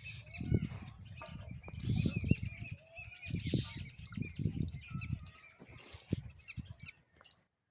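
Small birds chirping and calling rapidly, with irregular low rumbling bumps underneath that die away near the end.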